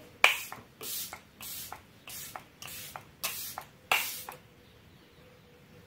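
Pump-action makeup setting spray (Deliplus) spritzed at the face about eight times in quick succession, a short hiss roughly every half second. The first spritz is the loudest, and the spraying stops about four and a half seconds in.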